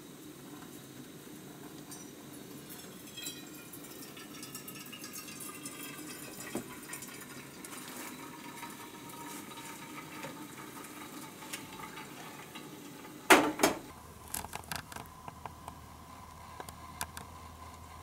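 Boiled water poured from a pot into a mug or bowl, the pouring note rising in pitch as the vessel fills. About thirteen seconds in comes one sharp clunk, the loudest sound, followed by a few light clinks of kitchenware.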